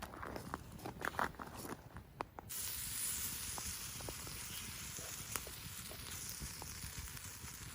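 Yakitori set on a hot iron plate over a campfire, sizzling. A few light clicks and rustles come first; about two and a half seconds in, a steady sizzle starts suddenly, with occasional small pops.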